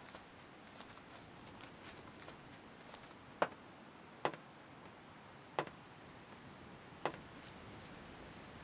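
Footsteps on wooden stairs: four sharp knocks, uneven and about a second or more apart, starting a few seconds in over a faint hiss.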